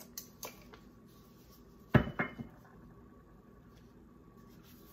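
A bottle being handled and set down on a kitchen counter: a couple of light clicks, then one sharp knock about two seconds in, followed quickly by two smaller knocks.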